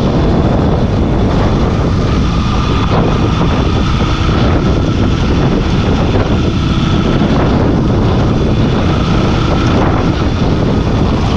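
Motorcycle engine running steadily while being ridden over a rough dirt road, with heavy wind rushing over the microphone.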